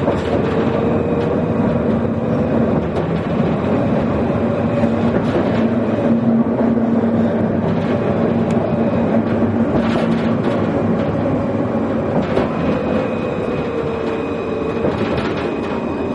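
Inside a moving Alstom Citadis light-rail tram: steady running noise of steel wheels on rail, with an electric motor hum and whine whose pitch shifts slightly near the start and again about two-thirds of the way through. Scattered clicks and knocks come from the track.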